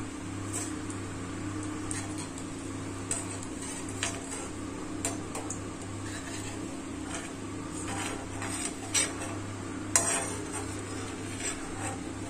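Curry leaves frying in hot oil in a steel kadai with a steady sizzle, while a stainless-steel slotted spoon scrapes and clinks against the pan as the crisp leaves are scooped out. The clinks come every second or two, the loudest about ten seconds in.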